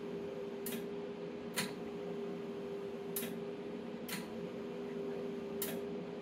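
The transmit/receive relay of a single-3-500Z tube linear amplifier clicks five times, at uneven intervals, as the amp is keyed in and out of transmit. A steady hum runs underneath.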